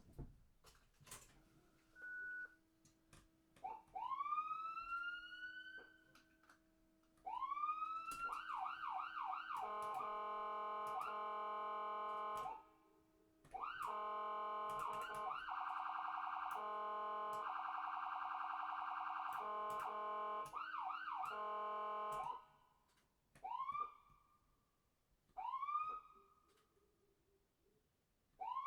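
Electronic ambulance siren. It gives single rising whoops, then a quick run of rapid whoops, then two long, steady, harsh multi-tone blasts, the second pulsing in its middle. Near the end it goes back to single whoops a couple of seconds apart.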